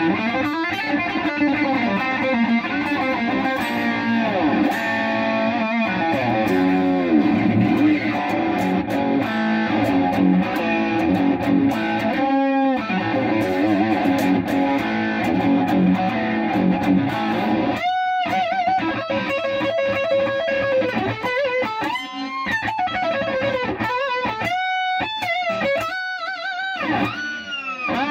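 Electric guitar played through a Marshall MG101FX solid-state amplifier: continuous single-note lead lines, with several held notes shaken by wide vibrato.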